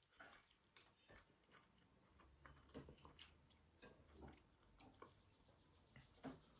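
Faint chewing and small soft clicks as cooked crab meat is picked apart by hand on a plate and eaten. A quick run of fine ticks comes near the end.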